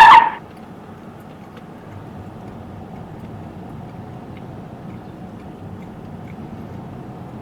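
Steady low rumble of a car's engine and cabin noise, heard from inside the car while it sits stopped in traffic.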